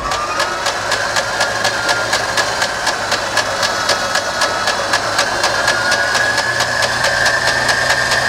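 Beechcraft Bonanza's flat-six engine being turned over by its electric starter without firing: a starter whine that rises as it spins up, then holds steady over a rapid, even beat from the turning engine. It is being cranked to bring up oil pressure after years of sitting.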